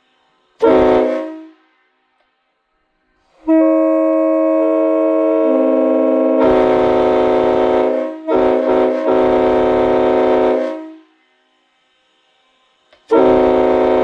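Leslie Supertyfon S5T five-chime train horn with bronze tabs, air-fed through a manual valve, sounding a short blast, then a long blast of about seven seconds in which the notes join one after another into the full chord, dipping and stuttering briefly partway through. A second short blast starts near the end.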